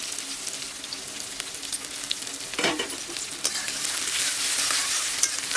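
Chopped onion sizzling in hot oil in a metal kadhai, stirred with a metal spatula that scrapes and ticks against the pan. There is one louder knock of the spatula about two and a half seconds in, and the stirring gets busier after it.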